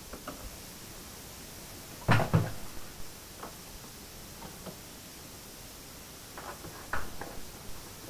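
Black plastic jerrycan set down on a concrete floor with two loud knocks about two seconds in. Near the end come smaller clicks and knocks as its cap is handled.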